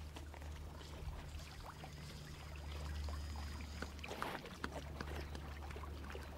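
Faint splashing and lapping of water as a hunting dog swims across a pond, over a steady low rumble.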